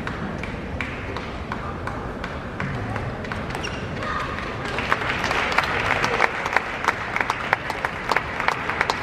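Table tennis rally: the ball clicks in quick succession off the bats and the table. About five seconds in, the rally ends and the audience applauds, with sharp individual claps.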